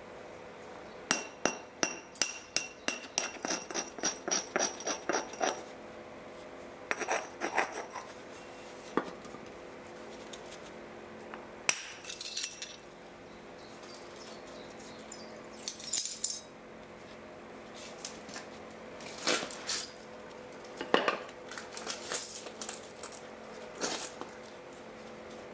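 Helgoland flint being knapped: sharp, glassy clicks and chinks of the worked stone. A quick run of them comes over the first few seconds, then scattered clusters of strikes follow.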